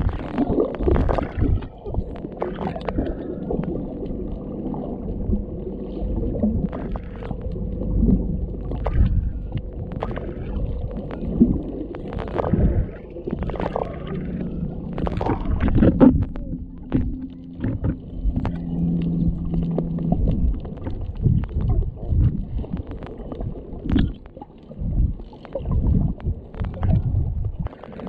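Underwater sound picked up by a GoPro Hero7 on a snorkeler over a coral reef: a low rumble of moving water with scattered sharp clicks and knocks, and a faint steady hum, which turns lower for a few seconds past the middle.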